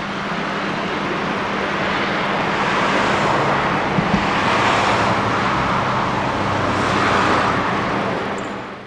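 LSWR M7 0-4-4 tank locomotive No. 30053 working steam as it pulls away, its exhaust a dense, loud rush that swells a few times, then fades out quickly at the very end.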